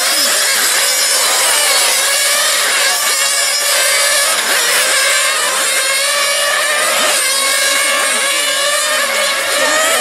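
Several 1/8-scale radio-controlled cars' small nitro engines running at high revs, their pitches rising and falling over one another as they accelerate and brake around the track.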